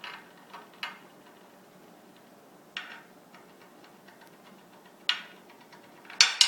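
Batteries and test gear being handled on a tabletop: scattered sharp clicks and taps, a few seconds apart, with the loudest pair near the end.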